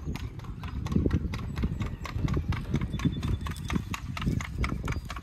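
Hooves of a Paso Fino gelding striking asphalt as it is ridden at its smooth four-beat gait: quick, evenly spaced hoofbeats.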